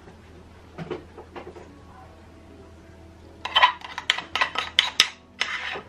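Metal spoon scraping and clinking against the inside of a ceramic bowl, scooping out thick whipped coffee. A quick run of sharp scrapes and clinks starts about three and a half seconds in and lasts a couple of seconds.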